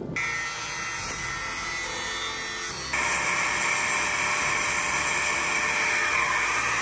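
Power tool running with a steady whine, then about three seconds in a louder, rougher angle-grinder sound as the disc cuts the end of a bow thruster tube to fit the hull profile.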